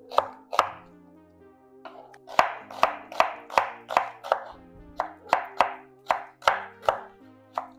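Chef's knife slicing a red onion on a wooden cutting board: sharp knocks of the blade on the board, about two or three a second, with a pause of over a second shortly after the start.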